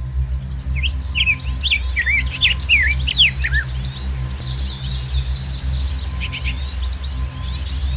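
Songbirds chirping with many quick, sliding whistled notes, densest in the first half and more scattered later, over a low steady ambient music drone.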